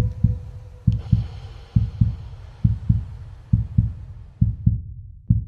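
Heartbeat sound effect: pairs of low, deep thumps (lub-dub) repeating steadily about once every 0.9 seconds. A steady hum behind it cuts off about a second in.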